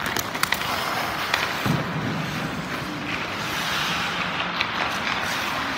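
Hockey skate blades scraping and carving on rink ice, with several sharp clacks of stick and puck, a quick cluster right at the start and more around a second and a half in.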